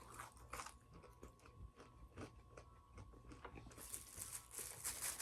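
Faint crunching and clicking of crispy fried chicken being bitten and chewed close to the microphone. The crunches come thicker and louder about four seconds in.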